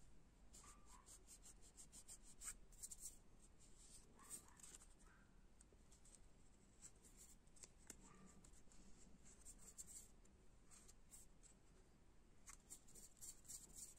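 Faint scratching and rubbing of fingers working the edge of a fingerboard deck's grip tape, tearing and peeling off the leftover strips; soft, scattered scrapes and ticks.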